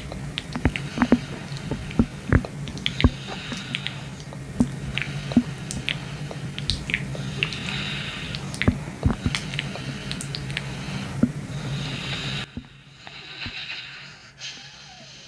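Stomach noises heard close up: irregular wet squishing, pops and clicks over a steady low hum. The hum cuts out about twelve seconds in, and the sound gets quieter after that.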